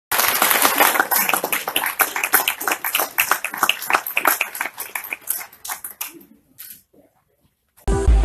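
Audience applauding, a dense patter of clapping that thins out and dies away after about six seconds. Electronic music with a steady beat starts just before the end.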